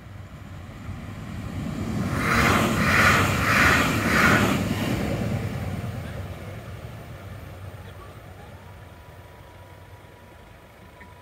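A train passing the level crossing fast: a rush that swells to a loud peak with a rhythmic beat about every two-thirds of a second, then fades away. Near the end comes a faint steady whine as the crossing barriers lift.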